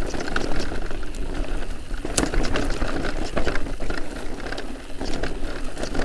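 Electric mountain bike with a Bafang M510 mid-drive motor descending a rough dirt trail: a steady rolling rattle of tyres, chain and frame, with many scattered sharp clicks and knocks as it goes over stones.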